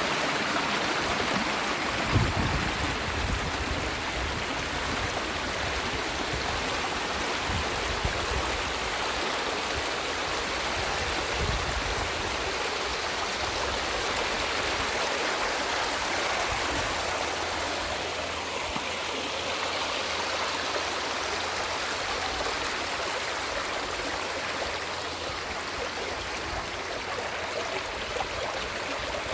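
Small mountain stream at its source, water running in a steady rush, with a few brief low thumps in the first half.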